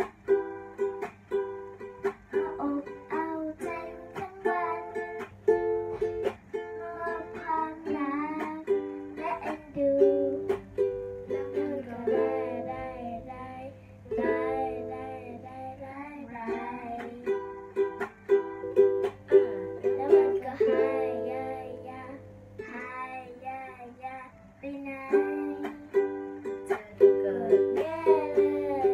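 A young girl singing a song with ukulele accompaniment, the ukulele chords continuing steadily under her voice.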